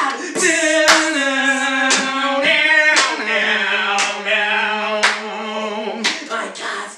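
Men singing a worship song loudly, holding long drawn-out notes, with sharp taps roughly once a second under the singing.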